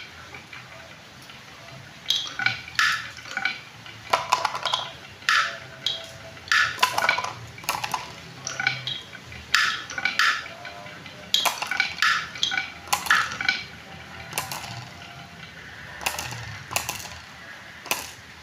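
Glass marbles rolling down a wooden zigzag marble-run slope, clicking against the wood at each bend. The clicks come in quick runs of several, starting about two seconds in and going on to near the end.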